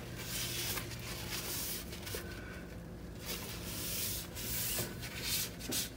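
Gloved fingertip rubbing along the caulked seam between a granite countertop and the wall in repeated strokes, smoothing a fresh coat of caulk.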